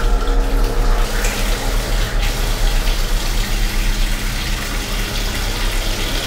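Water running from a sink tap into the basin as hands are washed, cutting off about two seconds in. A steady low hum runs underneath.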